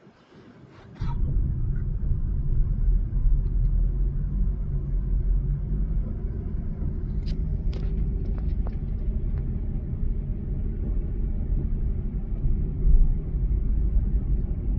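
Steady low rumble of a car on the road, starting suddenly about a second in, with a few faint clicks partway through.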